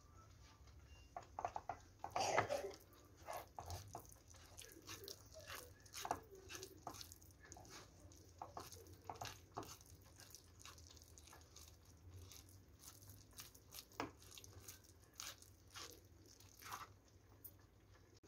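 Wooden spoon stirring and mashing a thick, sticky mixture of cooked pumpkin, flour and butter in a nonstick frying pan: faint, irregular squelches and scrapes, with a couple of louder knocks about two seconds in and about fourteen seconds in.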